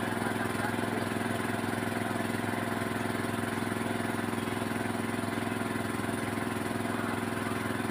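An engine idling steadily, an even, unchanging drone.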